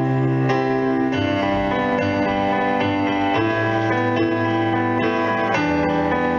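Live instrumental music from a school concert band, with piano among the instruments and no singing; sustained chords change about every two seconds.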